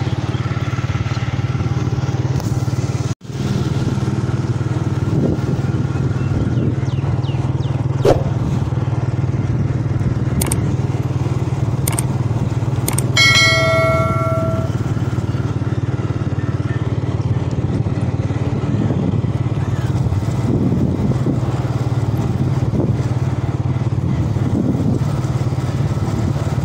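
Motorcycle engine running steadily while riding along a street. About halfway through, a horn sounds once for a second or so.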